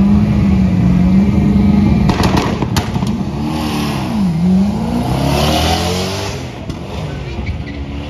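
A black Mazda RX-7 drag car's engine held at high revs on the starting line, with a few sharp pops about two seconds in. It then launches: the pitch dips and climbs again as the car pulls away down the strip, and the sound fades.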